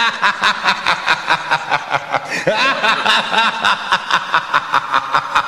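Series intro sting over the title card: a rapid, even run of laugh-like pulses, about five a second, with sliding pitches around the middle of it.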